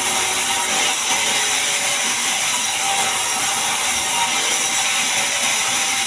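Band sawmill running steadily, its blade cutting through a large mahogany log, a loud unbroken noise with no pauses.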